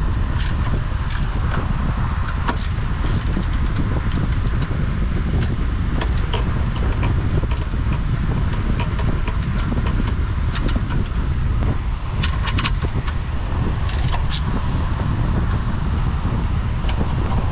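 Scattered metallic clicks and clinks of hand tools and parts being handled, over a steady low rumble.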